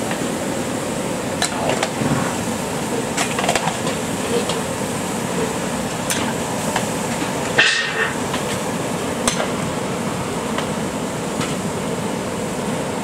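Metal clanks of a steel ladle and bowl striking a large aluminium cooking pot of mutton curry, scattered every second or two with the loudest a little past halfway, over a steady rushing noise.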